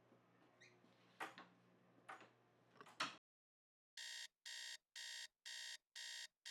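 Faint room hum with a few soft knocks and a sharp click about three seconds in as a bedroom door is pulled shut. After a short gap, from about four seconds in, a digital alarm clock beeps five times, about two beeps a second.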